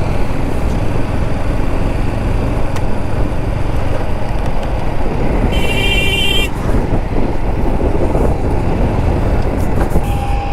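Wind rushing over the microphone and motorcycle engine and road noise while riding at speed. A vehicle horn sounds once for about a second, around six seconds in.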